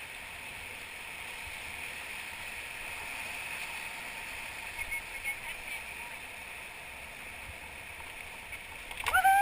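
Steady rushing hiss of whitewater on the river around the raft. Near the end a loud call from a person begins, rising and falling in pitch.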